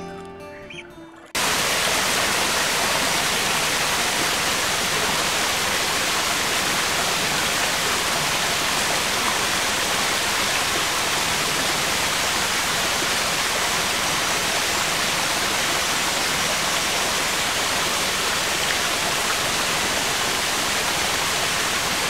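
Acoustic guitar music fading out, then about a second in, the steady rush of a small waterfall pouring down a rocky cliff cuts in abruptly and holds unchanged.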